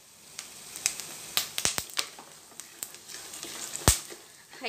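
Raw peanuts and roasted gram frying in hot oil on a low flame, sizzling with scattered sharp pops and crackles as the peanuts start to burst. One loud pop comes about four seconds in.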